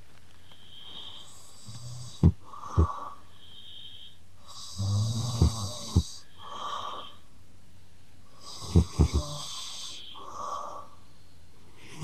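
Snoring from a sleeping ragdoll cat and a man lying beside it, taking turns: short hissing and whistling breaths between louder rasping snores about every four seconds, with a few sharp clicks.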